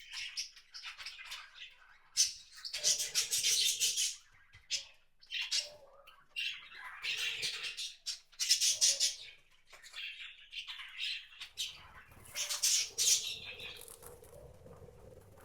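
Wild birds at a feeder calling in repeated bursts of rapid, high-pitched chattering, three or four times, with softer calls in between.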